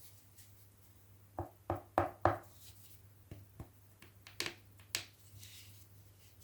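Hands handling small objects: a quick run of four knocks about a second and a half in, then a few lighter taps and clicks.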